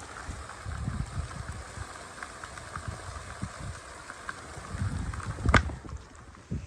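Thunderstorm noise: low, uneven rumbling over a steady hiss, with one sharp crack about five and a half seconds in.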